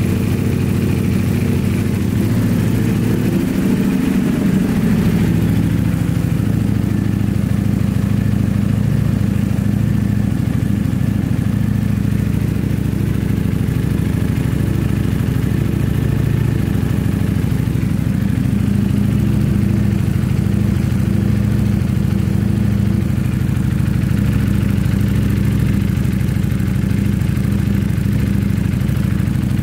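Ducati Panigale V4 Speciale's V4 engine idling steadily.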